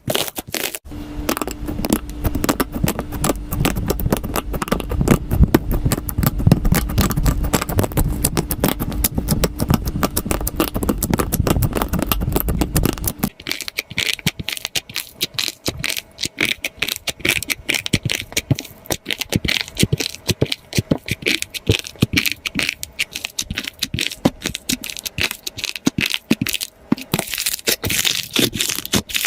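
Slime being squeezed and pressed, giving dense, rapid crackling and popping clicks. Under the first half a low hum runs with the crackling; about halfway through the sound switches abruptly to a thinner, crisper crackle.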